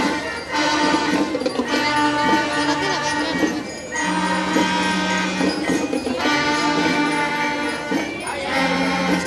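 Student marching band playing a tune in long held notes, phrase after phrase, with short breaks between phrases.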